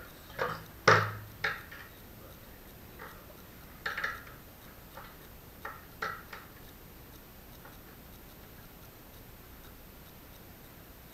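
Scattered knocks and clicks of parts or tools being handled, about eight in all. The loudest is a dull thud about a second in, and they stop after about six and a half seconds.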